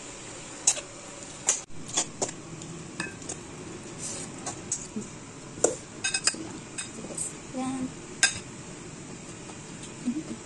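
Metal spoon clinking and scraping against a stainless steel mixing bowl and a plate as cucumber salad is tossed and served. The clinks are sharp and irregular, with a few louder strikes spread through.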